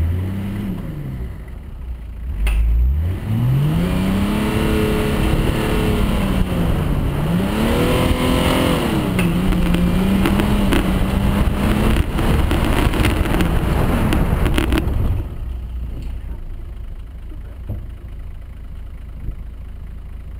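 Nissan Patrol's diesel engine pulling hard under load off-road. Its pitch rises and falls several times, with a few knocks from the rutted track, and it drops to a lower, quieter running about three-quarters of the way through.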